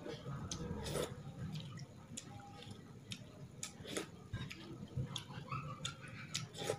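Close-miked eating sounds: irregular wet clicks and smacks of a mouth chewing rice soaked in soup broth, with fingers squishing the rice in the broth.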